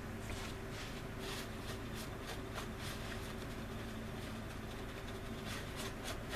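Short, rapid rasping strokes of hand-abrading a seam on a resin model wing, about three strokes a second, pausing in the middle and resuming near the end, over a steady low hum.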